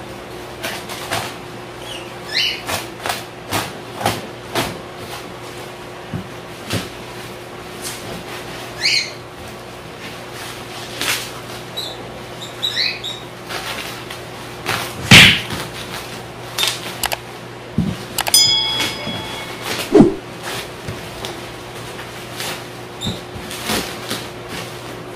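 Bubble wrap and plastic sheeting being cut, pulled and peeled off a cardboard box: crinkling and crackling with scattered clicks and a few short squeaks, and two louder knocks against the box in the second half.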